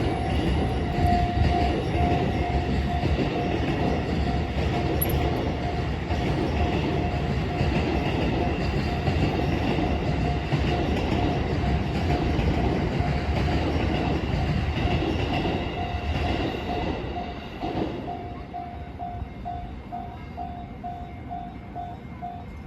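A train running: a steady rumble with a pulsing tone repeating at an even rhythm, growing quieter after about seventeen seconds.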